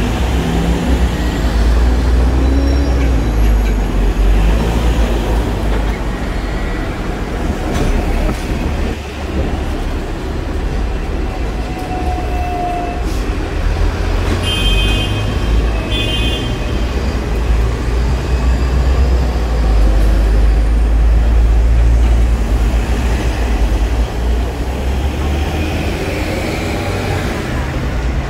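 Hong Kong double-decker tram running, heard from the upper deck: a steady low rumble of the car and its wheels on the rails, with street traffic around it. About halfway through a tram bell rings twice in quick succession.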